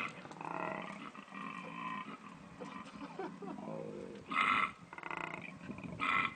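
Made-up sound effects for a marsupial lion (Thylacoleo): a series of pitched, throaty animal calls, with two short louder calls about four and six seconds in.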